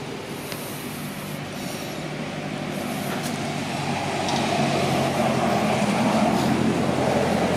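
A steady low engine drone with a rushing noise over it, getting louder about four seconds in.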